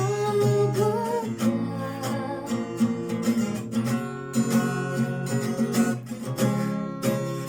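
Acoustic guitar strummed in a steady rhythm. A woman's sung line bends and ends about a second in, and the rest is guitar alone.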